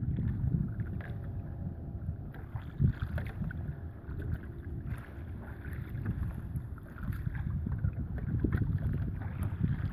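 Wind buffeting the microphone over choppy open water, with water lapping close by.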